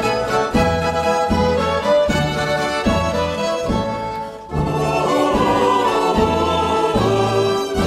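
Instrumental background music with a regular bass pulse. It dips briefly about four and a half seconds in, then carries on.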